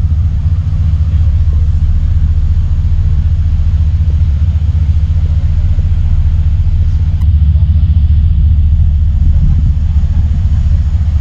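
A RORO catamaran ferry's engines running at the berth: a loud, steady low rumble with a constant hum.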